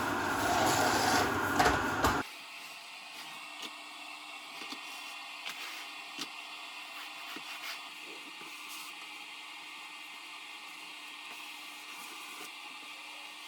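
Vacuum cleaner running loudly as it sucks up drywall sanding dust, cutting off abruptly about two seconds in. After that only a faint steady hum with scattered light clicks and taps.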